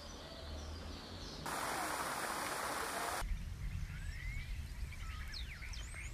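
Outdoor ambience with birds chirping and a low steady rumble. About a second and a half in, a loud even hiss starts abruptly and cuts off suddenly after nearly two seconds.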